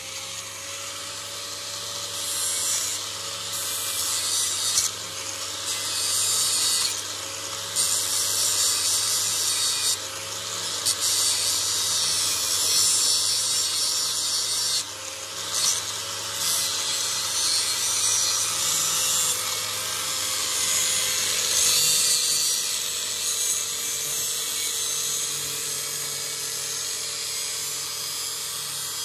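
Electric grinder running with a steady hum while a knife blade is ground on the wheel: a harsh grinding hiss that breaks off briefly several times and resumes.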